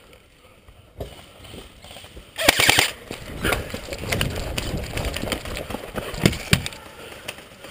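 Airsoft electric rifle firing a short full-auto burst of rapid clicks about two and a half seconds in, followed by a few single shots over a low rumble.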